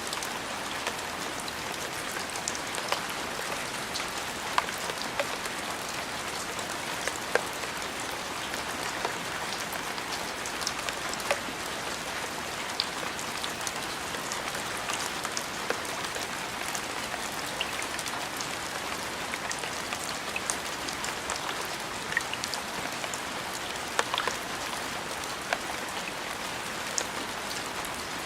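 Steady rain falling on a surface: a continuous even hiss with scattered sharp taps of individual drops landing close by.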